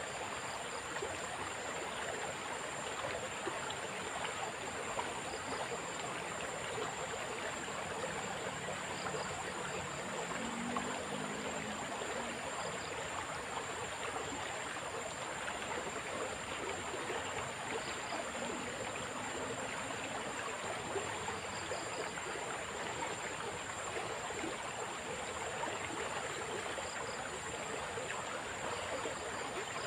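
Fast-flowing river water rushing steadily, with faint short high chirps every few seconds.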